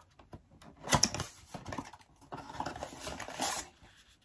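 Cardboard advent calendar door being opened and a small product box pulled out: a sharp tap about a second in, then a second or so of rustling and scraping cardboard.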